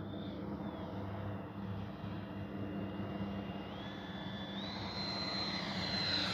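Electric ducted fan of an E-flite 70 mm F-16 RC jet whining in flight, faint at first. Its pitch steps up twice in the second half, and it grows louder near the end.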